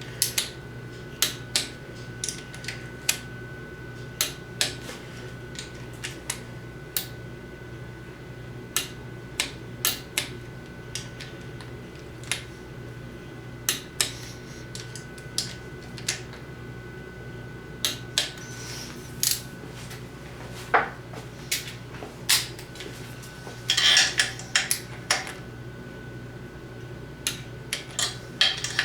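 Metal hand tools and engine parts clinking and tapping at irregular intervals, with a quick run of clinks about three-quarters of the way through, over a steady low hum.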